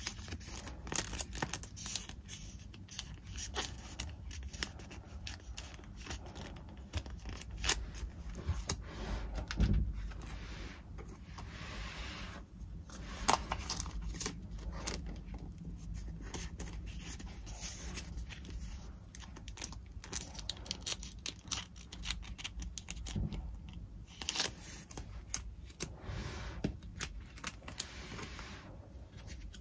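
Paper and packaging being handled close up: rustling and tearing, with many small clicks and taps throughout and a few longer stretches of scraping or tearing lasting about a second.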